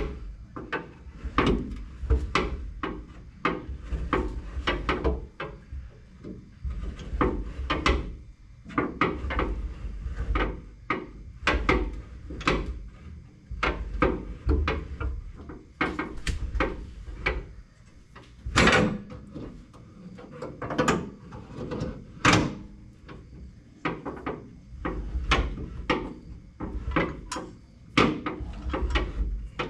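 Hand-tool work on a truck's winch mount: irregular clicks and knocks, one or two a second, with a low rumble between them, the two sharpest knocks about two-thirds of the way through.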